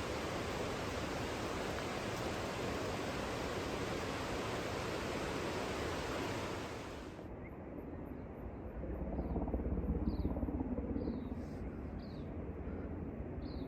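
Steady rush of fast-flowing water for about seven seconds, cut off abruptly, then quieter outdoor ambience with a few short, high bird chirps and a low rumble of wind on the microphone.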